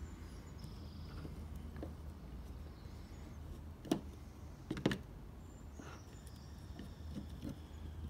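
A screwdriver backing small screws out of the plastic housing of a door lock actuator, with two sharp clicks about a second apart midway through, over a low steady hum.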